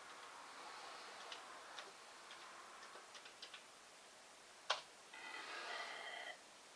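Keystrokes on a Commodore 64 keyboard as a password is typed: about nine faint, irregular key clicks. Then one louder click, followed by a brief electronic tone lasting about a second.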